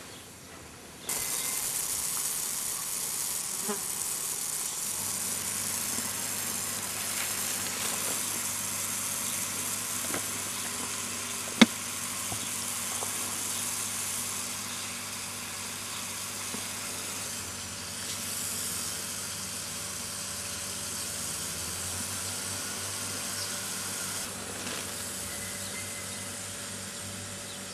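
Garden hose spray nozzle hissing as it sprays a fine mist of water, starting abruptly about a second in and then running steadily. A single sharp click comes near the middle.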